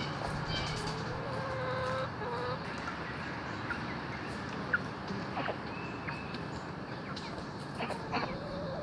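Chickens clucking and calling, with a low wavering call in the first couple of seconds and short high chirps scattered through; a single sharp click sounds about halfway through.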